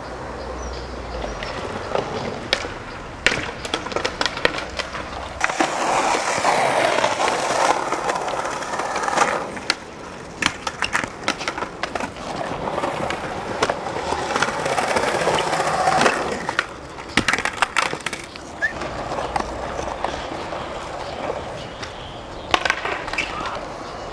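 Skateboard wheels rolling over concrete in stretches of several seconds, with many sharp clacks of the board striking the ground scattered through.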